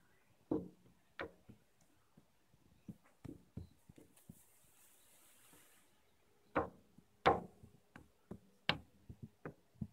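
Cats' paws tapping and knocking on window glass as they try to get at a dragonfly on the other side, in irregular taps with a few sharper knocks standing out.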